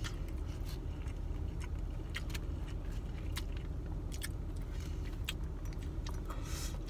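Chewing and eating sounds, with scattered light clicks and scrapes of a fork picking rice out of a foam takeout container, over a steady low rumble.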